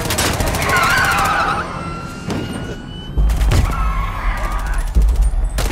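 Film score with a rapid electronic pulse and a heavy bass that comes in about three seconds in, over a futuristic car's drive sound effect: a whine that rises as the car speeds off.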